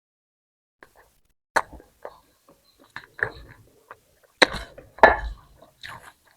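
Close-miked mukbang eating sounds: mouth clicks and chewing of bhindi keema and fried roti, a run of separate wet and crunchy bites, loudest about a second and a half in and twice near the five-second mark.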